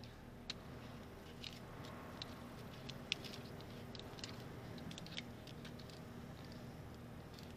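Faint scattered clicks and scrapes of gloved hands and a hex key working at the crankshaft position sensor and its plastic wiring connector, the sharpest click about three seconds in. A steady low hum runs underneath.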